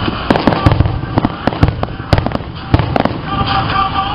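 Fireworks going off in a quick string of sharp cracks and low booms for about three seconds, then stopping.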